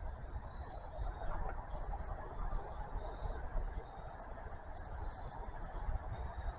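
Outdoor background: a steady low rumble under a short, high chirp that repeats about once a second.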